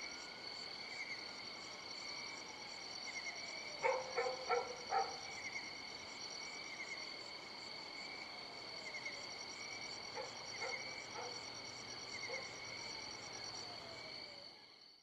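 Night-time insect chorus: crickets chirping steadily at several high pitches, with a faster pulsing trill above them. About four seconds in, four louder calls come in quick succession, and a few fainter ones follow later; the chorus fades out at the very end.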